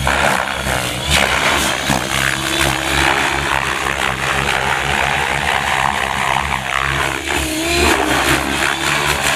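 X7 radio-controlled helicopter flying hard aerobatics at high head speed. The rotor blades whoosh loudly as the motor's whine rises and falls briefly in pitch several times during the manoeuvres.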